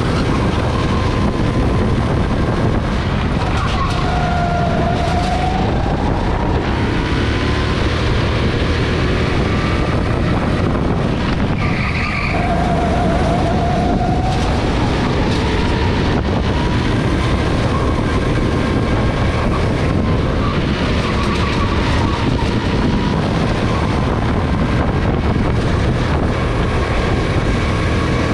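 Go-kart engine running at speed around a lap, its pitch rising and falling with the revs through the corners, under a steady rush of wind and road noise.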